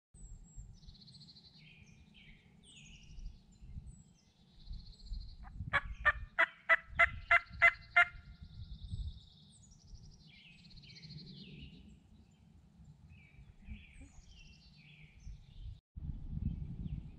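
Wild turkey calling close by: a quick run of about eight loud notes over two seconds, about six seconds in. Small songbirds chirp throughout over a low wind rumble.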